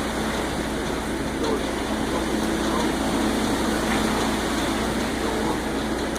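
Concrete mixer truck's diesel engine running steadily with a low, even hum.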